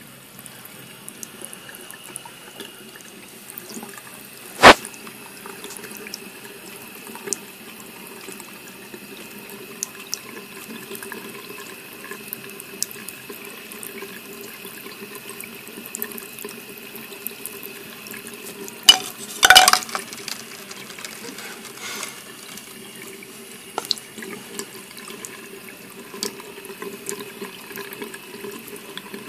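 Bathroom sink faucet running a thin, steady stream through a whale-shaped spout extender and splashing into the basin. A single sharp knock comes about five seconds in, and a short cluster of louder knocks comes around twenty seconds in; these are the loudest sounds.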